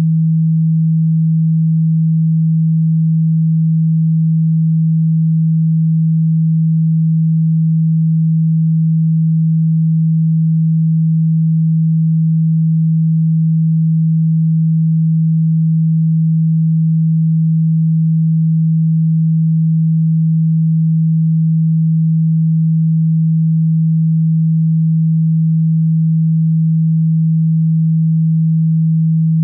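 A synthesized pure sine tone held at one steady low pitch, unchanging in level.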